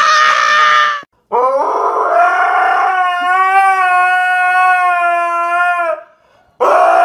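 Dog howling: three long, drawn-out howls at a steady pitch, with short breaks between them. The middle howl lasts about four seconds.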